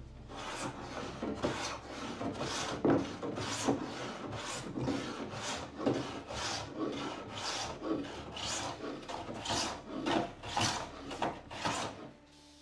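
Rhythmic back-and-forth rubbing by hand on a wooden door, about two strokes a second, stopping near the end.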